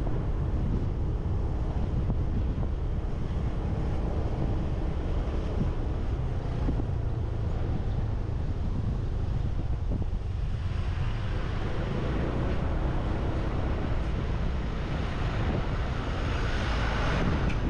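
Wind buffeting the microphone of a GoPro on a moving motorbike, a steady low rumble over road noise. A louder rushing noise builds in the second half and is strongest near the end.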